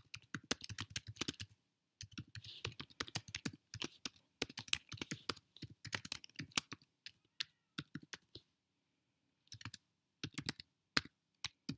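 Typing on a computer keyboard: quick runs of key clicks, pausing briefly about two seconds in and again around nine seconds.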